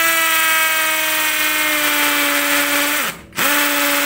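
Bull 20-volt cordless hammer drill boring into a rendered wall, its motor running at a steady pitch that sags slightly under load. It stops for a moment about three seconds in, winding down, then starts again.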